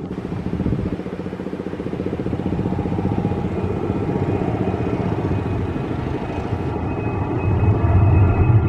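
Lion Air Boeing 737's twin CFM56 turbofan engines at take-off thrust through the take-off roll and lift-off. A steady jet engine noise grows louder, with a deeper rumble swelling near the end as the plane climbs out.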